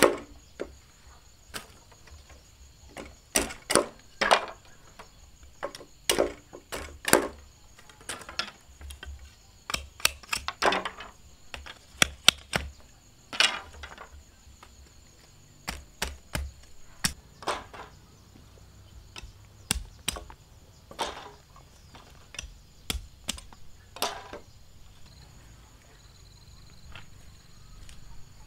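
Machete chopping and splitting bamboo into thin slats: irregular sharp knocks of the blade on the cane, some followed by a short crackle as the bamboo splits. The strokes stop a few seconds before the end.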